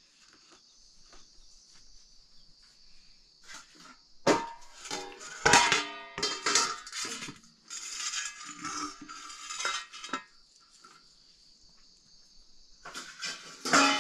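A large knife cutting and chopping raw pork, giving several sharp knocks and metallic clinks as the blade strikes the wooden block and the metal tray, bunched in the middle and again near the end. Crickets chirp steadily behind it.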